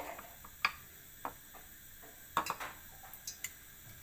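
Irregular light clicks and taps of hands working chicken leg pieces in a bowl of dry flour mixture, coating them over a first layer of batter.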